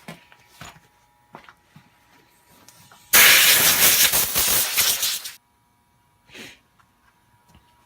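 A loud burst of pressurized spray hissing for about two seconds while the chainsaw is cleaned out, followed a second later by a short fainter puff. Light clicks and taps of handling come before it.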